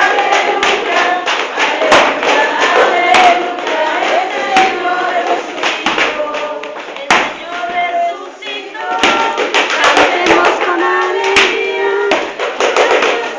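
A group of voices singing a hymn together, unaccompanied by any melodic instrument, with sharp percussive knocks every second or two.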